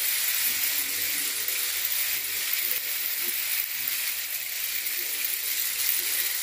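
Homemade cardboard-tube rain stick: green lentils and small pasta trickling down past the nails inside, a steady hissing patter with no break.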